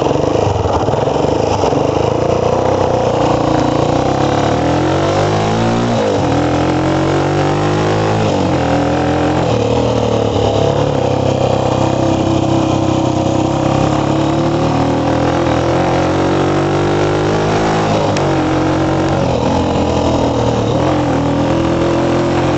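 Motorcycle engine running loud while being ridden; the revs climb and drop back twice in the first eight seconds, then hold fairly steady.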